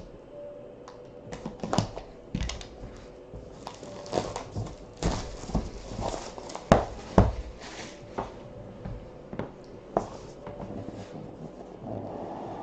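A trading-card box and its packaging being opened by hand: crinkling and tearing of wrapping, with scattered taps and knocks of handling. A few louder knocks come a little past the middle.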